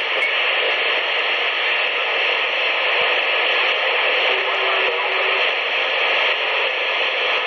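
CB radio receiver on channel 19 (27.185 MHz) giving out a steady, loud hiss of static with no voice on the channel.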